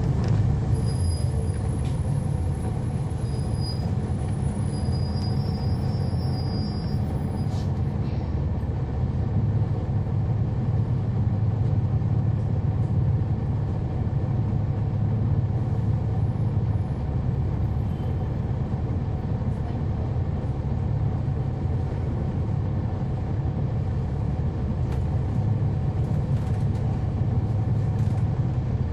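Interior sound of a 2011 NABI 416.15 (40-SFW) transit bus running, its Cummins ISL9 inline-six diesel and ZF Ecolife 6AP-1400B automatic transmission heard from on board as a steady low rumble. A faint high whistle sits over the first several seconds.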